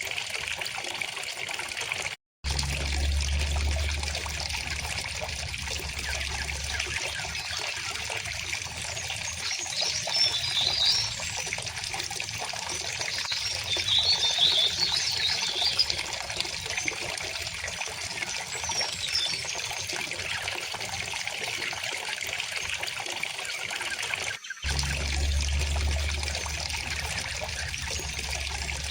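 River water flowing steadily, with short bursts of bird chirping about ten and fifteen seconds in. The sound cuts out completely for an instant twice, each time followed by a brief low rumble.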